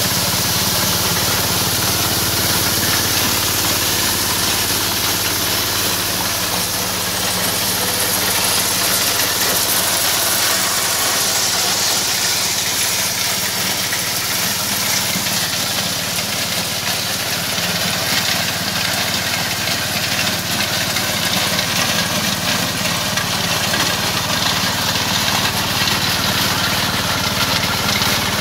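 Single-cylinder diesel engine running steadily, belt-driving a multicrop thresher, with the thresher's drum and fan adding a steady high hiss.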